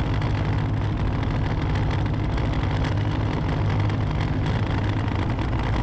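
Two-stroke snowmobile engine on an Avid MKIV homebuilt plane idling steadily, propeller turning, while it is warmed up before takeoff.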